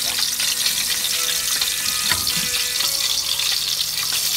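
Milkfish frying in hot oil in a pan: a steady sizzle and crackle. A metal spatula scrapes against the pan about two seconds in as it is worked under the fish to turn it.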